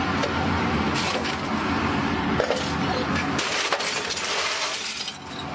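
Scrap metal clattering and clinking as it is tipped from a wheelbarrow into a cupola furnace, a run of sharp metallic strikes over a low rumble.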